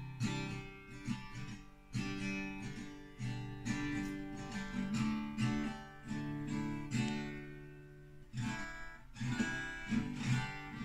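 Acoustic guitar being strummed, chords struck in a steady rhythm with their notes ringing on between strums.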